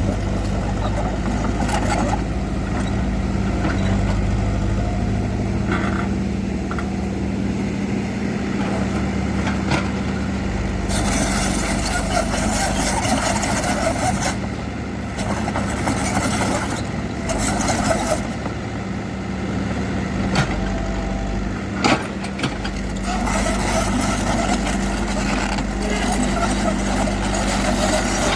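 Heavy diesel construction machinery, an excavator or vibratory roller, running steadily, its load rising and easing by turns. There is a single sharp knock about three-quarters of the way through.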